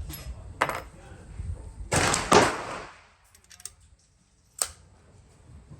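A single gunshot about two seconds in, from a Thompson Center Contender firing a .410 shell of size 4 shot, its report ringing on briefly. A few light clicks come before it and one sharp click near the end.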